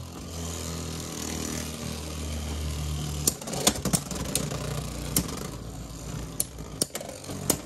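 Two Beyblade X spinning tops, one of them a Rhino Horn 3-80 Spike, whirring in a plastic stadium with a steady hum. From about three seconds in comes a run of sharp clacks as the tops collide.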